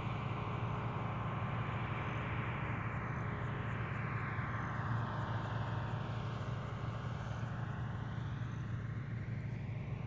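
1976 New Holland 1530 combine harvester running steadily: an even, deep engine drone with no change in speed.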